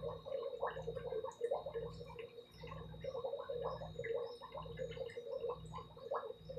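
Water bubbling and gurgling continuously, a dense crackle of small bubbles over a low hum that swells and fades every half second or so.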